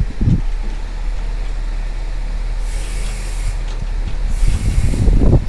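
Large marina boat forklift running with a steady low engine rumble as it lifts a cabin cruiser from the water, with two short hisses a little under two seconds apart in the middle.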